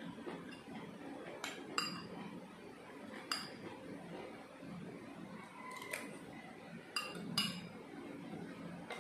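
Eating utensils clinking against glass and ceramic bowls during a meal: about six short, ringing clinks at uneven intervals, two close together near the end.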